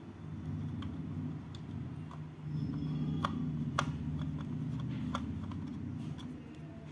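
Precision screwdriver working a small screw out of the plastic case of a battery charger: a low, uneven rubbing with scattered small clicks, getting louder about halfway through.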